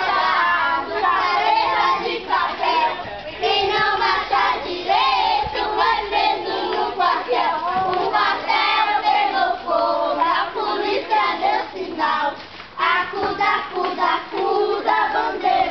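A group of young children singing a gospel song together.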